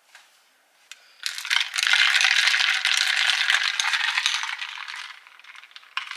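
A metal straw stirring coffee in a glass jar: a fast, continuous clinking and rattling against the glass. It starts about a second in and lasts about four seconds, fading toward the end, with another short burst near the end.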